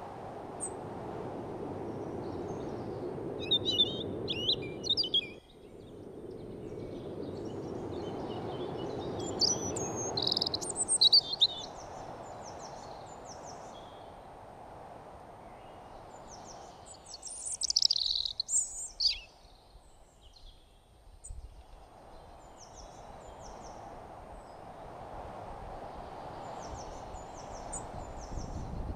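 Birds chirping in short scattered calls, busiest about three to five, ten to eleven and seventeen to nineteen seconds in, over a rushing noise bed that swells and fades and drops out abruptly about five seconds in.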